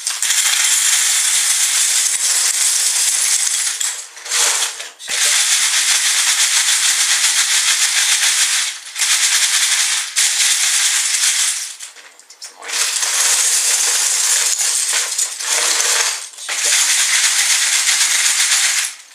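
Loose LEGO bricks clattering inside a plastic LEGO Sorting Head as they are tipped in and the head is shaken, settling the bricks through its sieve trays. The rattling comes in long spells broken by a few short pauses.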